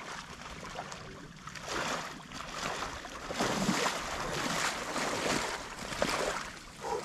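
Water splashing and sloshing in irregular surges, in marsh water.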